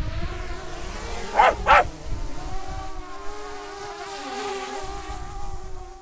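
DJI Mavic Air quadcopter's propellers whirring steadily as it lifts off and climbs, with a dog barking twice about a second and a half in.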